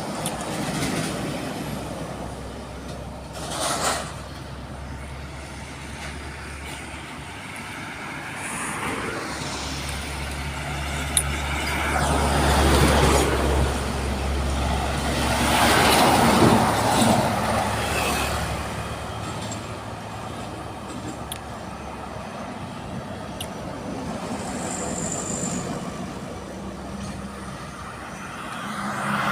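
Heavy trucks driving past on a road. The noise swells as vehicles pass close about twelve and about sixteen seconds in, with a short hiss just before four seconds.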